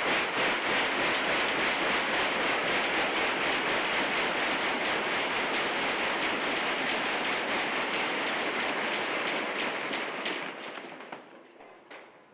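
Audience applauding, a dense run of many hand claps that dies away over the last couple of seconds, with a few last stray claps near the end.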